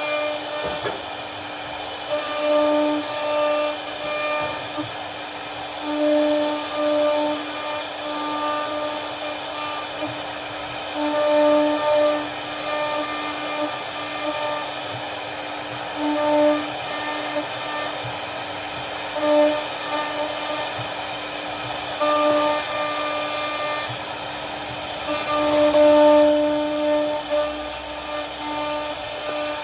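CNC router spindle running with a steady high whine over a hiss, swelling louder at irregular moments as the bit cuts through the wood of a door panel.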